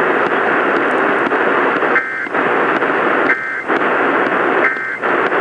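Radio static hiss broken by three short two-tone data bursts about 1.3 s apart. These are the EAS SAME end-of-message code that closes the alert.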